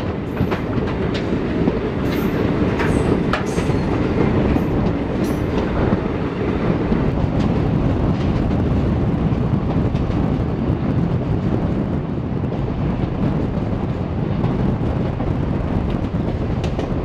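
Passenger express train running on the track, heard from an open coach window: a steady rumble of wheels on rail, with sharp clicks from the wheels over rail joints or points in the first few seconds.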